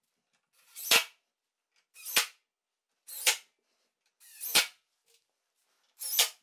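Five short, sharp pops, a little over a second apart, each swelling briefly and then cutting off.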